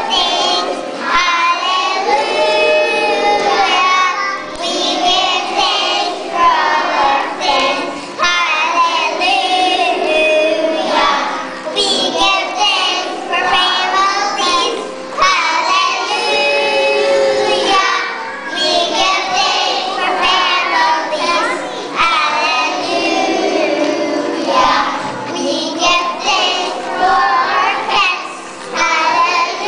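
A class of kindergarten children singing a song together, phrase after phrase with short breaths between.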